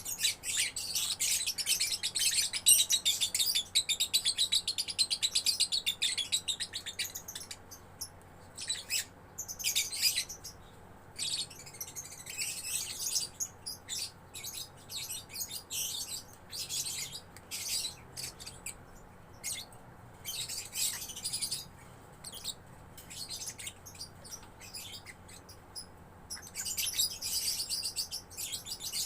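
Young lovebird chattering in rapid strings of high chirps. The first bout runs about seven seconds, then come shorter bursts with pauses between. This sustained chatter is what bird keepers call 'gacor'.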